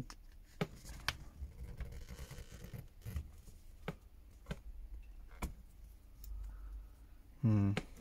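A plastic pry pick working around the seam between a Redmi 9A's back cover and frame: light scraping with a dozen or so scattered sharp plastic clicks as the cover is pried loose.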